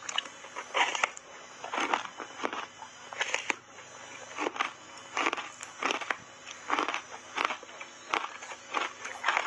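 Close-up chewing of a frozen ice bar coated in matcha powder: a bite, then a dozen or so sharp, irregular crunches, about one to two a second, as the ice breaks between the teeth.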